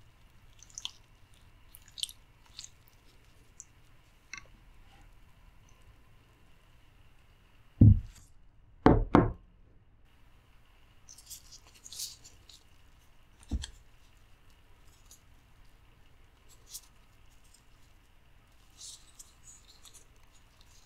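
Plastic-gloved hands handling boiled octopus in a glass dish: soft squishy, crinkly clicks, broken by a few dull knocks. One knock comes about eight seconds in, two close together a second later, and one more a few seconds after.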